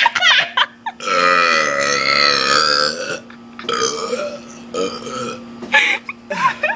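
A person burping: one long, drawn-out burp with a wavering pitch starting about a second in and lasting about two seconds, followed by a few shorter vocal sounds.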